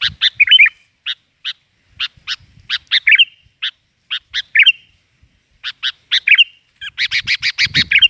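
Sooty-headed bulbul (kutilang) singing: a string of short, sharp notes and brief warbled phrases, breaking into a fast run of notes near the end.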